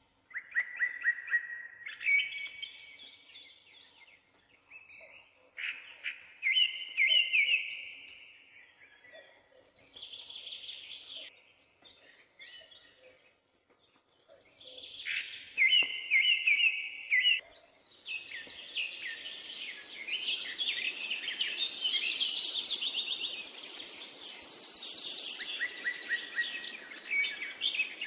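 Songbirds singing: a string of short trilled song phrases with pauses between them, then, about two-thirds of the way in, a busier chorus of overlapping birds over a steady hiss.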